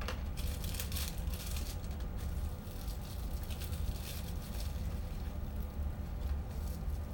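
Paper wrapping crinkling and rustling irregularly in the hands as a small item is unwrapped, over a steady low hum.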